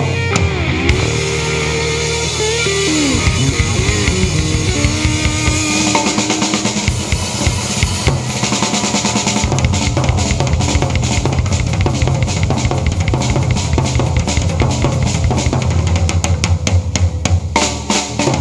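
Live rock band playing an instrumental passage on electric guitar, bass guitar and drum kit. The guitar bends long sustained notes in the first few seconds. From about eight seconds in, the drums take over with fast, dense strikes on kick, snare and cymbals that thicken toward the end, like a drum roll.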